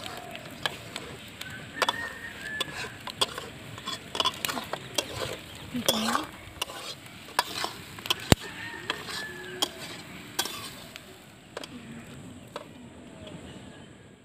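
Metal spatula stirring and scraping boiled eggs frying in oil and masala in a wok, with a steady sizzle and frequent sharp clicks of the spatula against the pan.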